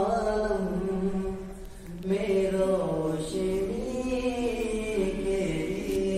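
A man singing a naat (an Urdu devotional poem in praise of the Prophet) in long, drawn-out held notes. He pauses briefly for breath about a second and a half in.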